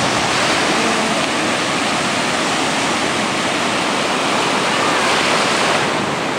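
Ocean surf breaking on a sandy beach: a steady rush of waves washing up the shore.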